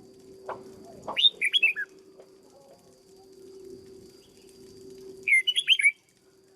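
Red-whiskered bulbul (chào mào) singing: two short phrases of quick, rising and falling whistled notes, about a second in and again about five seconds in.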